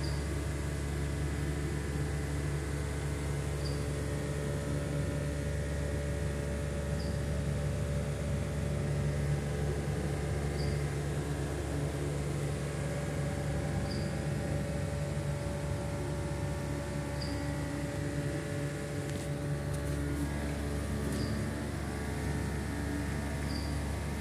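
Steady electrical and mechanical hum of a running sewage-pump installation and its star-delta motor control panel, unchanging throughout. A faint short high chirp repeats about every three seconds over it.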